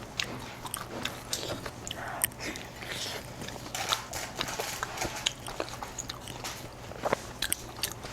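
Close-miked chewing and biting: irregular wet mouth smacks and crisp clicks from eating air-fried roasted pork, with a faint steady hum underneath.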